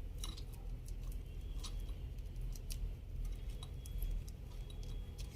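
Light, irregular clicks and ticks from small parts being handled, over a low steady hum.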